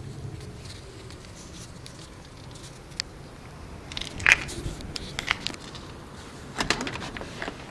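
Handling noise from a phone camera moved around inside a car: scattered clicks and rustles over a low steady rumble, with the loudest clicks about four seconds in and again near the end.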